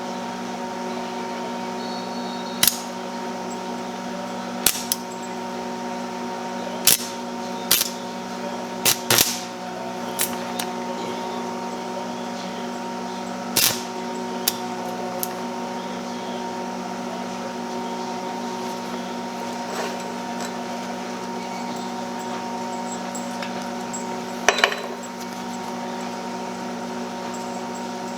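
Stick (arc) welder humming steadily while a 1/8-inch 6013 rod is struck against 1/4-inch steel. About nine short, sharp cracks and pops come at uneven intervals, with a long gap in the middle, as the arc struggles to start and hold.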